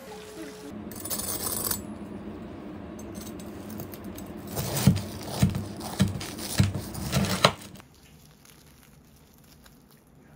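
Hot oil sizzling around a breaded block in a frying pan, then a knife crunching through the crisp fried breadcrumb crust, about six sharp crunches in quick succession starting about four and a half seconds in.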